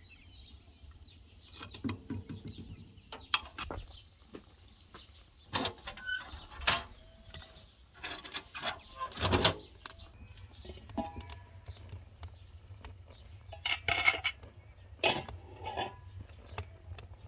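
Metal utensils clinking and scraping against metal pans and pots in a scattered series of sharp knocks, some ringing briefly. Small birds chirp in the background.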